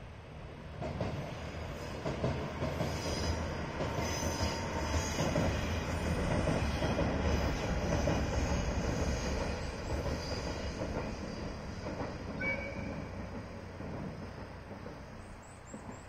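A diesel railcar crossing a steel truss railway bridge, its rumble of engine and wheels on the bridge swelling as it approaches and fading as it moves away. A few brief high squeals sound over the rumble.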